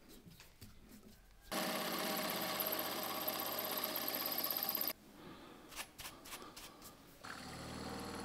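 Small milling machine working aluminium. A few clicks and knocks come first; then the spindle runs with a steady high whine while a TiN-coated drill bores into an aluminium ring, and it cuts off suddenly. After more clicks the mill runs again near the end as the cutter mills a slot.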